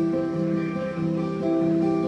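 Acoustic guitars strumming chords, with held notes sounding over them, in an instrumental stretch of a live acoustic band song.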